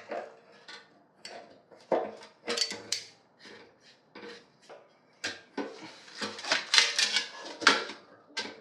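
Irregular metallic clicks, clinks and knocks of tools and metal parts being handled while the fuel tap is taken off a motorcycle fuel tank. They come sparsely at first and are busiest and loudest about five to eight seconds in.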